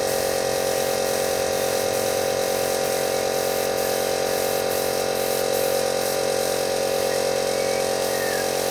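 Varnish spraying equipment running steadily: a constant motor hum with a hiss of air and spray over it.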